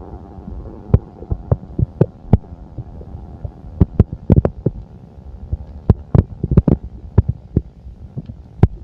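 Sounds of a full stomach heard close against the belly: irregular sharp pops and knocks, several a second at times, over a steady low hum.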